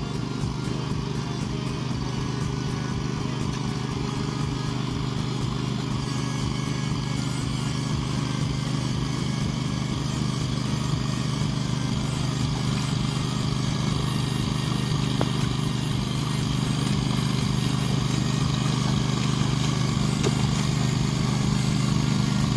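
A vehicle engine running steadily, gradually getting a little louder.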